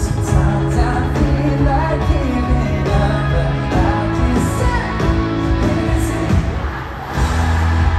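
Live pop-rock band playing with a singer over sustained bass notes. Near the end the sound dips briefly, then the band comes back in with heavier bass.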